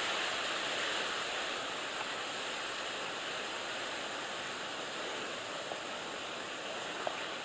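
Steady, even hiss of outdoor background noise, with a couple of faint ticks in the second half.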